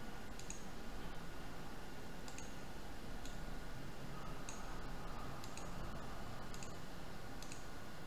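Computer mouse clicks, about seven single clicks spaced a second or so apart, over a steady background hiss.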